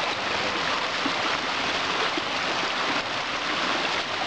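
Shallow rocky stream rushing over stones and a small cascade: a steady, even rush of water.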